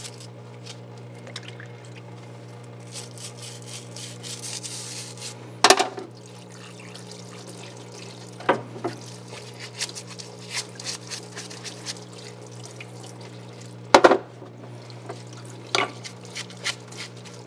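Solvent parts washer with its pump humming steadily while solvent runs and splashes over metal bandsaw parts in the tub. Several sharp knocks of the parts against the tub, the loudest about six and fourteen seconds in.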